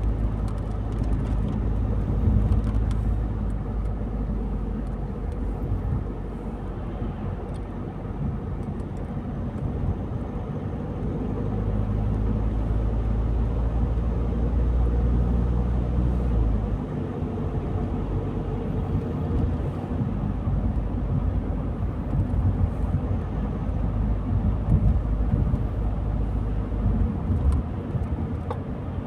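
A car driving along a road: a steady rumble of engine and tyre noise. The deepest part of the rumble drops away about two-thirds of the way through.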